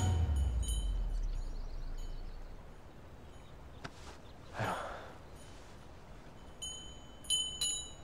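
A deep rumble fading away over the first couple of seconds, a soft whoosh about halfway through, and a few light, bright chime tinkles near the end.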